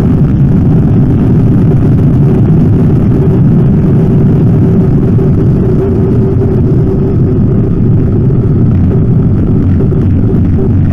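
Motorcycle engine pulling steadily at high speed in sixth gear, mixed with heavy wind rush over the handlebar-mounted camera's microphone.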